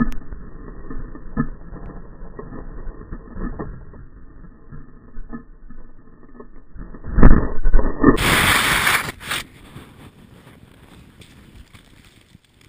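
Slowed-down, muffled rumbling and buffeting of a snowmobile crash as the rider is thrown through the air. About seven seconds in comes a heavy low thud as he hits the ground. Then, back at normal speed, there is a loud rush of snow and wind noise lasting about a second, followed by quieter scattered snow noises.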